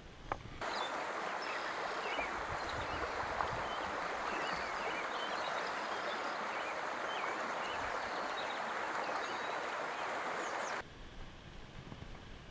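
Steady rush of flowing creek water, with faint bird chirps over it. It starts suddenly just after the beginning and cuts off abruptly a couple of seconds before the end.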